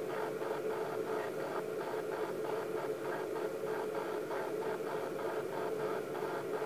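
A steady hum and hiss with a faint regular pulse about three times a second.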